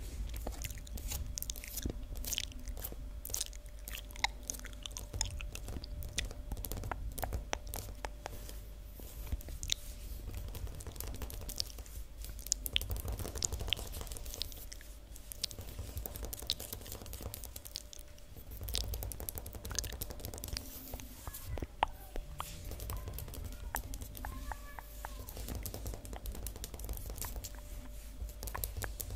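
Long fingernails tapping and scratching on a hard floor close to the microphone: a dense, irregular patter of sharp clicks, mixed with wet mouth clicks.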